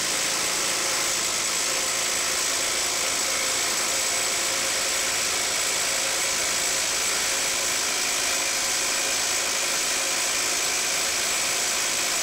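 Hyper Tough 12-volt brushed cordless impact driver hammering steadily and rapidly as it tightens a bolt against hydraulic rams, under load with the pressure building.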